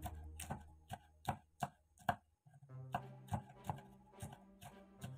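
Kitchen knife slicing bird's eye chillies on a wooden cutting board: a quick, even run of sharp knocks of the blade on the wood, about two to three a second, with a short pause a little past halfway. Faint background music comes in about halfway.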